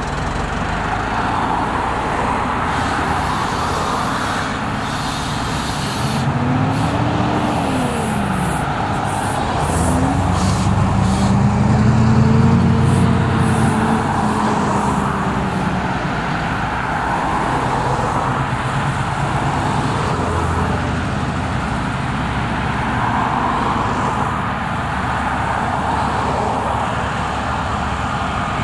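Road traffic passing close by: cars, a bus and trucks going past in a steady stream. The engine pitch of passing vehicles rises and falls, and the loudest pass comes about twelve seconds in.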